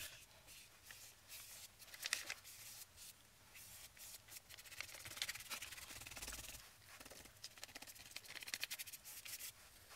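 Flat paintbrush dragging thick black water-based block printing ink across heavy paper in uneven streaks: a run of faint, scratchy brushing strokes.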